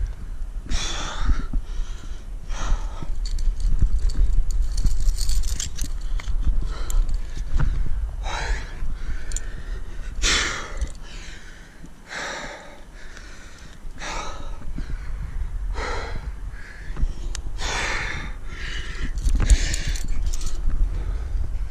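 A rock climber's hard breathing under strain: a loud, rasping breath every one to two seconds as he works through strenuous moves, over a low rumble.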